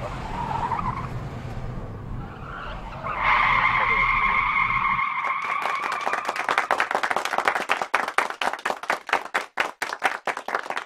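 A car's engine and road noise, fast-forwarded so it sounds high and scratchy, with a steady high squeal coming in about three seconds in. The car noise stops about five seconds in, and hands start clapping: a spatter of applause that thins out toward the end.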